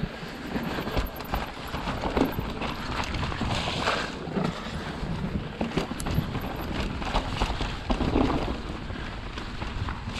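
Wind rushing over an action camera's microphone while an electric mountain bike rolls downhill over a rough trail, with irregular knocks and rattles from the tyres and bike over the ground.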